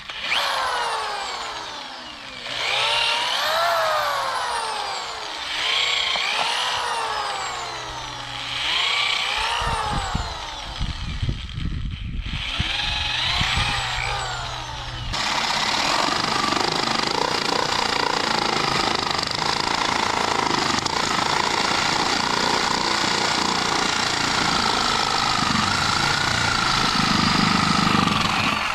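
Power drill boring a hole. In the first half the motor speeds up and slows down in a few short runs with some knocks, then from about halfway it runs steadily under load.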